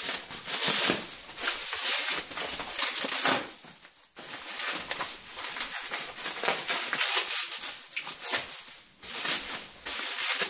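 Bubble wrap crinkling and rustling as it is pulled and crumpled off a wooden cane, in uneven spells with a short pause about four seconds in.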